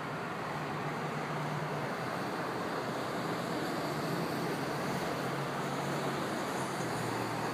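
Steady rushing noise with a faint low hum underneath; no thunderclap.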